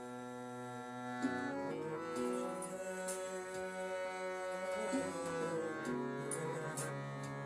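Harmonium being played: a slow melody of long held reed notes with the pitch changing every second or two.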